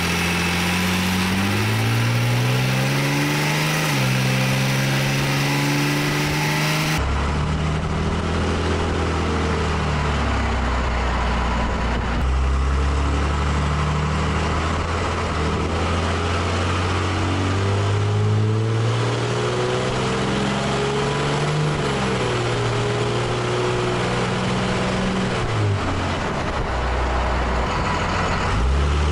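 Swapped-in 5.9-litre 12-valve Cummins inline-six turbodiesel in a Ford F250 pulling hard under acceleration, its note rising and then dropping back at each gear change several times, over tyre and road noise. The P7100 injection pump's fuelling is turned up with an AFC Live fuel controller being tuned.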